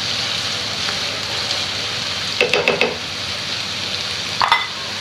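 Vegetables and beaten egg sizzling steadily in hot oil in a frying pan, with a quick run of about four metallic taps about halfway through and one ringing clink near the end as a utensil stirs against the pan.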